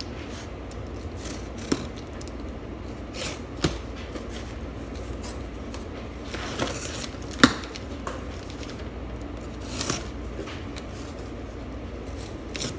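A cardboard shipping box being cut open and its flaps pulled back: scattered scrapes, rustles and taps, the sharpest about seven seconds in, over a low steady hum.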